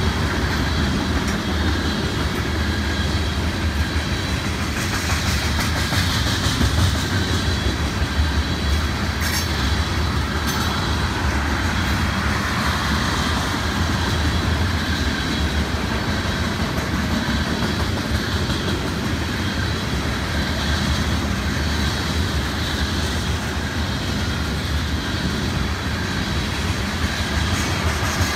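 Tank cars of a freight train rolling past, their steel wheels running steadily on the rails, with a few sharp clicks about nine and ten seconds in.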